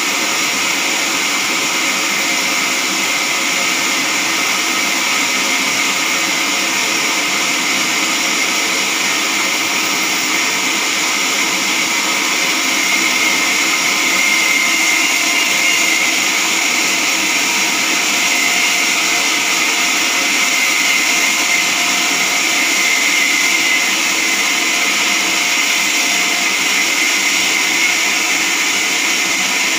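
Log band sawmill's blade cutting lengthwise through a log, a steady high-pitched whir with a thin steady tone in it. It grows a little louder for a stretch in the middle.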